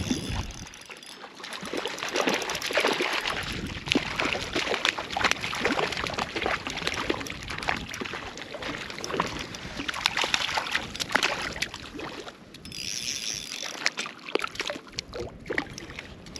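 Water splashing and trickling close by in quick, irregular bursts, with many small crackling clicks; it eases off briefly about twelve seconds in, then picks up again.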